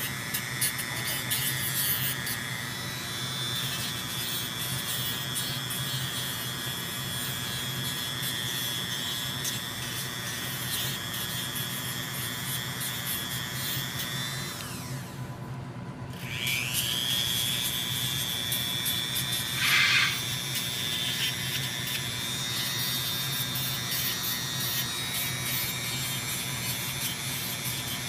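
High-pitched whine of a Dremel rotary tool running steadily while it grinds down a cockatoo's toenails. About halfway through it spins down and stops for a moment, then spins back up with a rising whine. There is a short scratchy burst about twenty seconds in.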